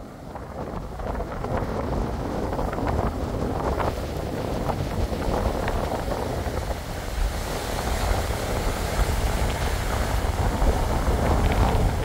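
Wind buffeting the microphone over the steady wash of wet-season storm surf breaking on the beach, fading in over the first couple of seconds.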